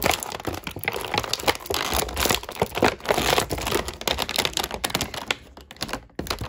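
Thin clear plastic figure packaging crinkling and crackling as hands pull and bend it, a dense run of irregular crackles that thins out briefly near the end.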